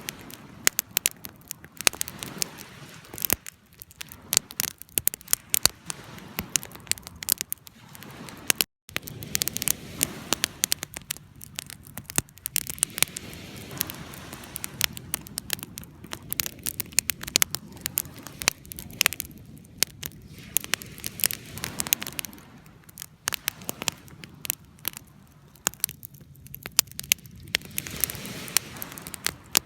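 Fire crackling: irregular sharp pops and snaps over a soft hiss, with a brief cut to silence about nine seconds in.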